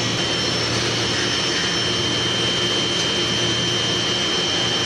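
PVC foam board extrusion line running: steady machinery noise with a constant high-pitched whine and a low hum underneath.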